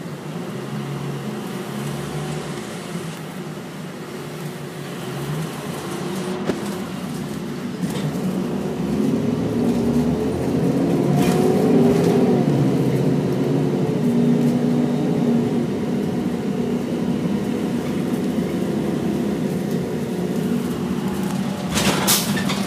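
Bus engine running, heard from inside the passenger cabin. It grows louder and climbs in pitch as the bus speeds up, peaking about halfway through, then eases to a steady hum. A few sharp knocks come near the end.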